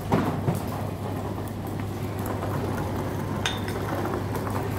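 Airport terminal hall ambience: a steady rushing noise over a low hum. There is a knock just after the start and a small click about three and a half seconds in.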